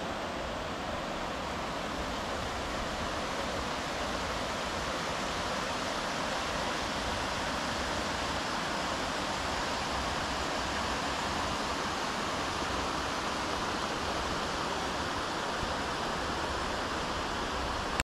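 Small rocky stream rushing steadily over stones and little cascades.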